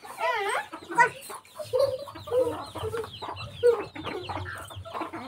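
Domestic chickens clucking: a string of short clucks and squawks a few times a second.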